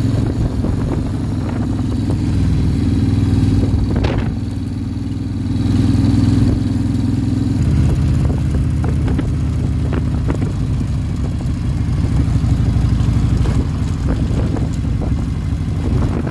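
Harley-Davidson touring motorcycle's V-twin engine running under way. It eases off briefly, picks up again about six seconds in, then settles to a lower, steady note.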